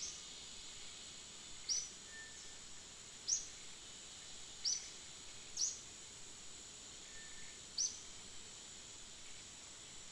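Forest ambience: a steady high insect drone, with a bird giving five short, high, down-sweeping chirps spaced a second or two apart.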